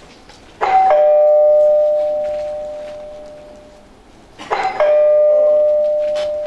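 Two-tone ding-dong doorbell chime rung twice, about four seconds apart: each time a high note then a lower note, both ringing out and fading over a few seconds.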